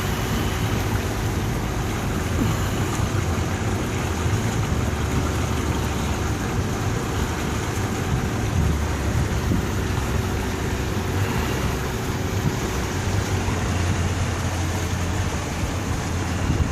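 A river boat's engine running steadily, with a steady wash of water and wind noise over it and a faint steady hum that fades out near the end.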